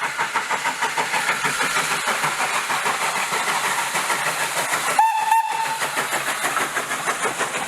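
Steam locomotive on the move, with a rapid, even beat of about five a second over a loud hiss, and a short whistle blast about five seconds in.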